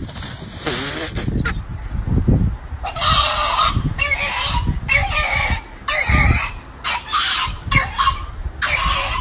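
Loud bird calls repeated about once a second, starting about three seconds in, over a low rumble.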